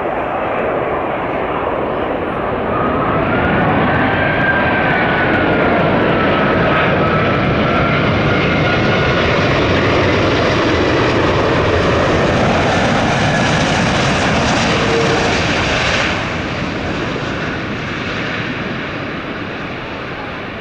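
Airbus A380's four jet engines, a loud roar with a wavering high whine. The sound swells over the first few seconds, holds, then drops off sharply about three-quarters of the way through and fades away as the airliner passes.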